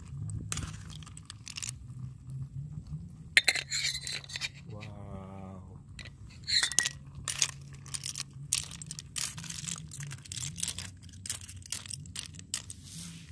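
Shells of cooked, opened kepah clams clinking and clattering against each other and against a small metal camping pot as a metal spatula stirs them and scoops one out, a string of irregular clicks throughout.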